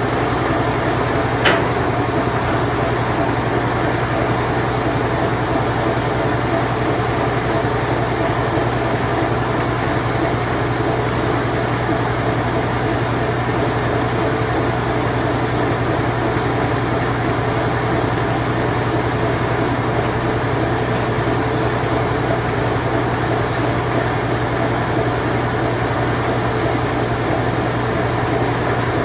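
Whirlpool Imperial Clean Touch top-load washing machine running its spin cycle: a steady mechanical whir over a low hum, with one brief click about a second and a half in.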